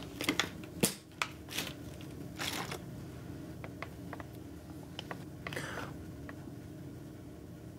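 Thin plastic water bottle crinkling and crackling as it is squeezed and handled, in a few short irregular crackles with small clicks between them.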